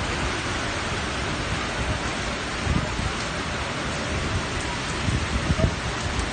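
Typhoon wind and heavy rain: a steady rushing noise, with a few low gusts swelling about a third of the way in and again near the end.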